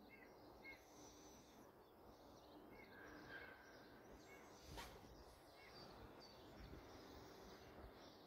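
Near silence: faint, scattered bird chirps over a low background hush, with a single sharp click about five seconds in.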